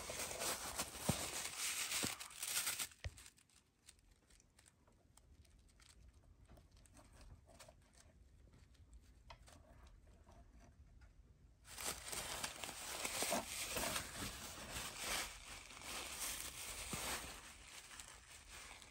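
Packaging being crinkled and torn open by hand. It comes in two spells: the first few seconds, then again from about twelve seconds in, with quieter handling in between.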